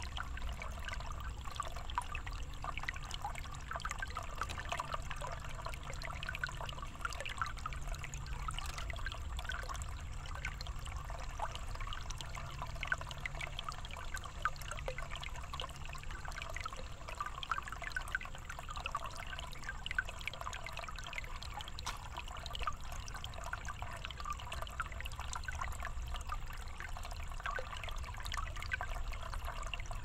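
Thin stream of water pouring steadily from a bamboo spout and splashing and trickling onto wet rocks and shallow water, with a low steady rumble underneath.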